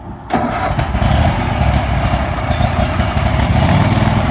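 Riding lawn mower's small engine, choke partly pulled, jumps suddenly to a loud, steady run about a third of a second in and keeps running.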